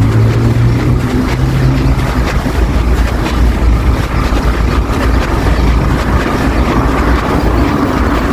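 City street traffic: a steady low rumble of motor vehicles going by, with a pitched engine drone that is strongest over the first two seconds and then fades.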